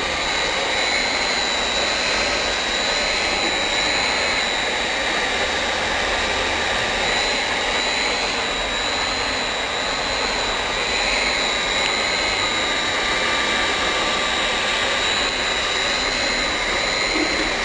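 Hot air PVC banner welding machine running: its heat gun's blower hisses steadily with a thin high whine while the machine travels along welding the banner.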